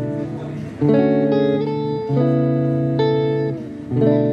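Clean, undistorted electric guitar chords played through a Friedman Runt 20 amp and recorded from its cab-simulated direct out, heard in playback. Each chord rings on, and new chords are struck about a second in, about two seconds in and near the end.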